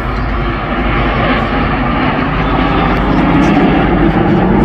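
Jet noise from the Red Arrows' nine BAE Hawk T1 jets flying in formation, a steady rushing sound that grows gradually louder as they accelerate round.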